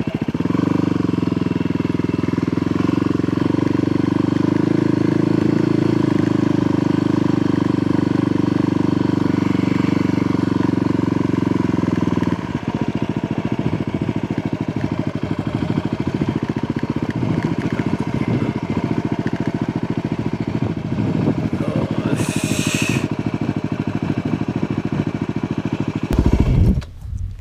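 Motorcycle engine running while riding, loud and steady, easing off about halfway through. A brief hiss comes near the end, just before the engine sound drops away.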